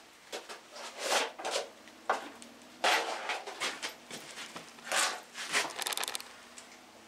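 Hand tools and removed engine bolts being handled: a series of short, irregular scrapes and rattles, with a rapid run of clicks a little after the middle.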